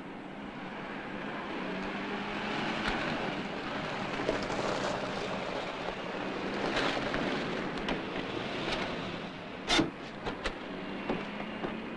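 A Chevrolet Corvette convertible driving up and pulling to a stop, its engine and tyre noise growing louder and then easing off. Near the end come a sharp click and a few lighter knocks.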